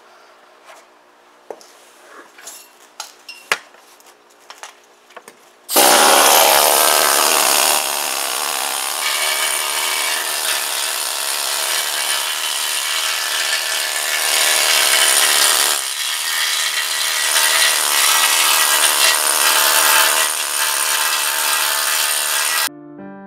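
Pneumatic needle gun hammering rust and scale off the inside of a rusted steel tractor wheel rim: a loud, steady noise that starts suddenly about six seconds in and cuts off shortly before the end. Before it starts, only a few light knocks.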